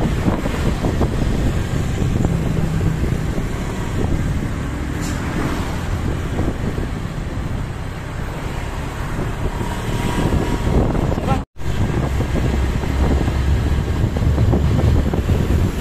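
Heavy wind buffeting the microphone over the low rumble of a moving vehicle on the road. The sound cuts out completely for a split second about eleven seconds in.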